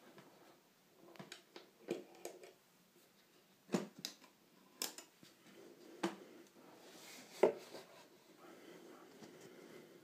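Scattered light knocks and clicks of hard objects being handled, about half a dozen spread irregularly, the loudest one near the end.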